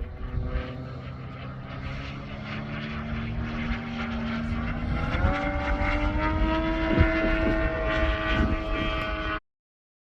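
Desert Aircraft DA-200 four-cylinder two-stroke petrol engine of a large RC aerobatic plane, running steadily in flight with its propeller. About five seconds in, its pitch steps up as the throttle opens, then holds. The sound cuts off suddenly near the end.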